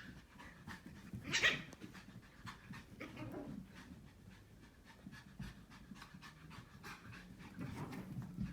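Pomeranian puppy panting, a fairly quiet run of short breaths, with one louder brief sound about a second and a half in.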